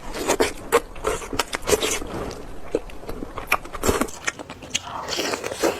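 Close-miked eating sounds: someone biting and chewing spicy chicken, with many short, sharp crunches and wet mouth clicks coming several times a second.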